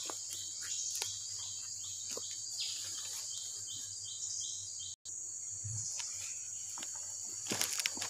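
Tropical rainforest insects shrilling steadily, with a repeated chirping call about twice a second for the first half. Brief dropout about five seconds in, then a few clicks and rustles near the end.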